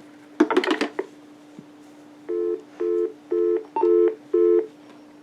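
Telephone line audio: five evenly spaced two-tone beeps, about two a second, over a steady low hum, with a brief clatter of clicks about half a second in.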